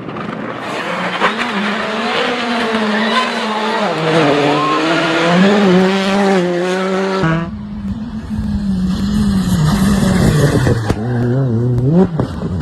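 Rally car engines revving hard at full throttle, their pitch climbing and dropping through gear changes. About seven seconds in the sound switches abruptly to another car with a heavier, deeper rumble, still rising and falling in pitch.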